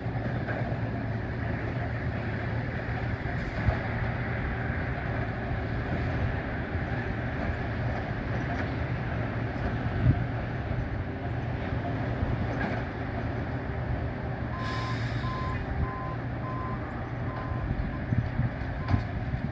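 Engines of railroad track-maintenance machines, a tie replacement machine and a grapple truck, running steadily at a distance, with an occasional knock. About three-quarters of the way through, a backup alarm starts beeping at an even pace.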